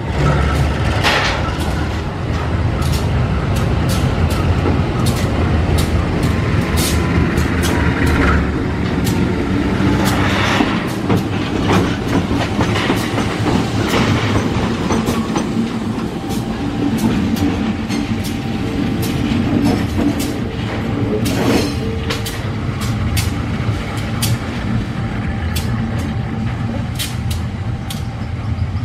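CC 201 diesel-electric locomotive moving slowly close by, its diesel engine running steadily while the wheels give many sharp clicks and clanks on the rails.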